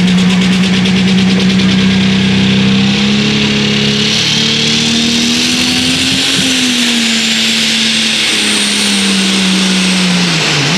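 Twin-turbo diesel pulling truck's engine running hard under load as it drags the sled, with a high turbo whine rising and falling over it; the engine's pitch climbs a little, then sags and drops off near the end. The two turbochargers are not spooled up quite enough to carry the pull.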